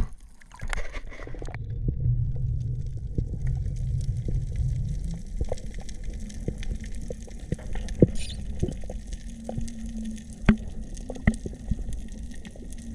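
Underwater sound picked up through an action-camera housing: a low rumble with scattered sharp clicks and snaps. A faint steady hum comes in about two-thirds of the way through.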